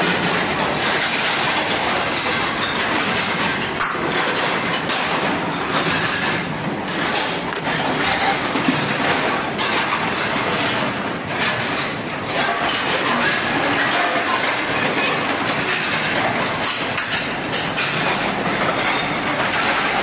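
Steady running noise of a conveyor-type commercial dishwasher and its tray conveyor, with frequent clatter of plastic trays, bowls and dishes as they are scraped and loaded.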